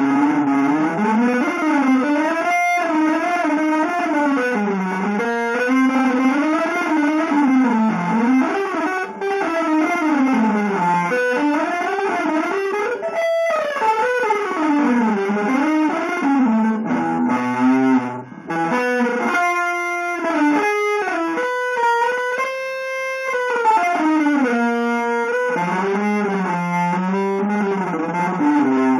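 Solo electric guitar improvising freely: one sustained line whose pitch slides and bends continuously up and down rather than stepping between notes, broken by a few short gaps.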